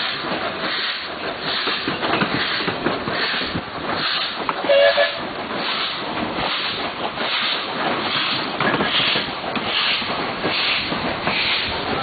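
WP class steam locomotive working slowly, its exhaust chuffing in an even rhythm of just under two beats a second, with steam hiss. A brief high tone sounds about five seconds in and is the loudest moment.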